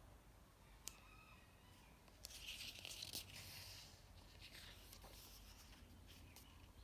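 A faint click, then a soft paper rustle lasting a couple of seconds: a page of a picture book being turned.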